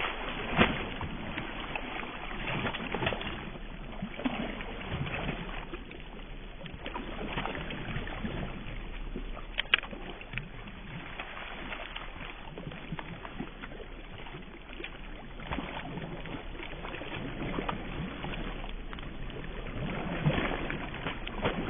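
Water sloshing and splashing as a dog wades through shallow, grassy pond water, with a sharp click about ten seconds in.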